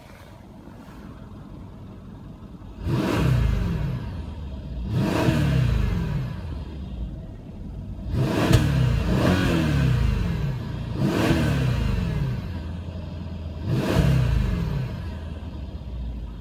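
Mercedes-Benz S63 AMG's twin-turbo V8 idling while parked, then revved in a series of quick throttle blips about every two to three seconds, each falling back toward idle. A deep V8 roar, heard from inside the cabin.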